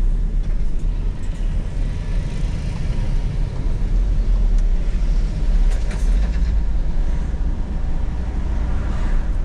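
Inside the cab of a Volkswagen Crafter van on the move: a steady low engine and road rumble, with a couple of light clicks about six seconds in.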